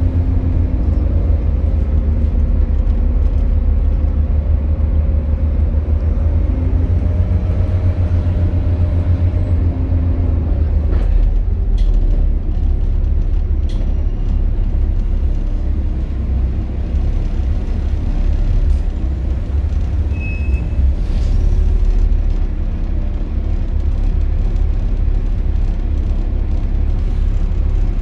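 Volvo B7TL double-decker bus's straight-six diesel engine running with a deep, steady rumble, heard from inside the lower deck. The engine note shifts lower about ten seconds in, with a few sharp clicks and rattles soon after.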